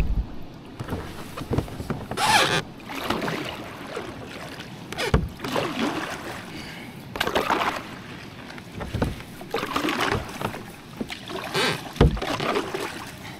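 Double-bladed kayak paddle strokes, the blades dipping and splashing into the water on alternating sides about every two seconds.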